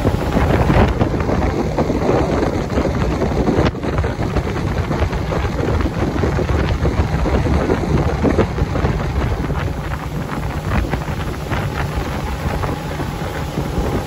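Steady wind buffeting the microphone over the rush of water and the motor of a Quintrex motorboat under way.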